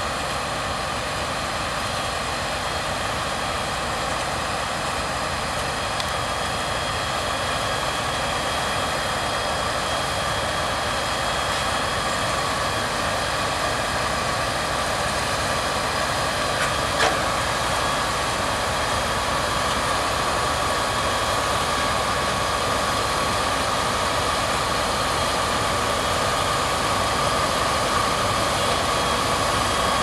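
Fendt 936 tractor's six-cylinder diesel running under load while pulling a working Grimme SE 150-60 twin-row potato harvester: steady engine and machinery noise with a high steady whine, growing gradually louder. A single sharp click about 17 seconds in.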